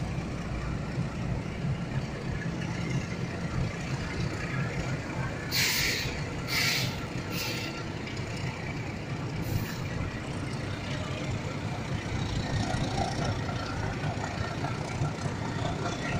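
Diesel locomotive engine running with a steady low rumble as the locomotive creeps forward. Four short sharp hisses of air come through the middle.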